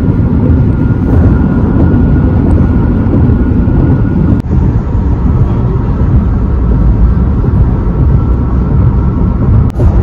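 Steady low rumble of road, tyre and wind noise inside a moving car's cabin, with two brief clicks, one about four seconds in and one near the end.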